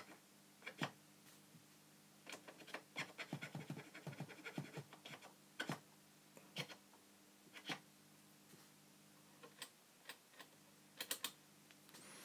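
Faint irregular clicks and scratchy ticks, thickest about two to five seconds in and scattered after, over a steady low hum.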